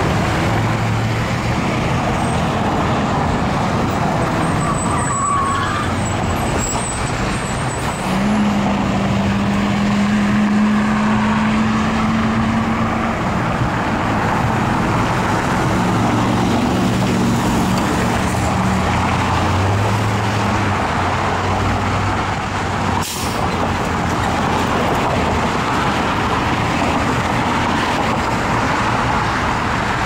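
Steady road traffic: cars and trucks driving through and pulling away, with engine drone and tyre noise, and a short sharp knock about two-thirds of the way through.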